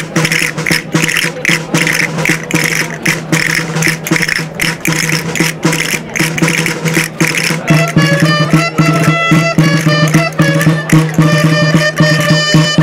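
Traditional Valencian street music played by a dolçaina and tabalet band, the tune for a folk dance. A quick, steady drum beat comes first. About eight seconds in, the dolçaina shawms enter with a loud, reedy melody.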